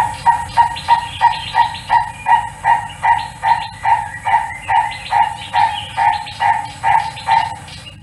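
Purple-crested turaco (lourie) calling: a long, even series of loud repeated notes, about three a second, that stops shortly before the end.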